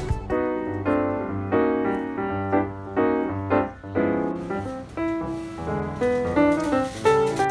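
Background music: a piano melody of quick separate notes over low held bass notes.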